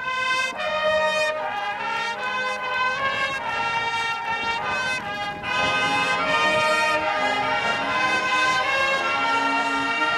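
High school marching band playing, led by the brass section (trumpets and trombones) in sustained, changing chords.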